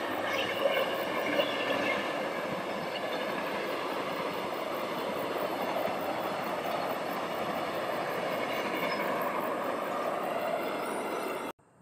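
Passenger train running past on the rails: a steady rush of wheel and rail noise, with a faint high squeal in the first few seconds and two sharp clicks about a second in. It cuts off abruptly near the end.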